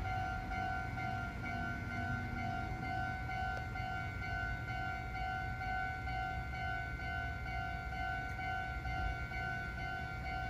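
Japanese railway level-crossing warning bell ringing: an electronic ding repeating at an even, quick rhythm, over a low rumble.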